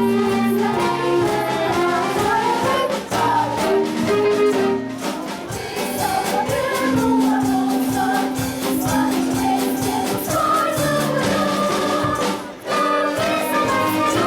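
Music: a group of voices singing in chorus over an instrumental accompaniment with a steady beat.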